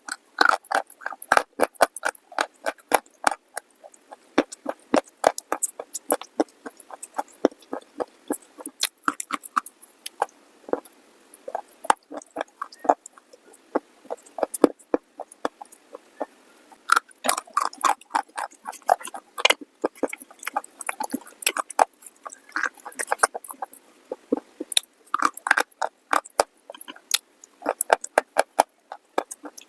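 Close-miked chewing and crunching of a brittle, dry item: dense, irregular crisp crunches with brief pauses now and then.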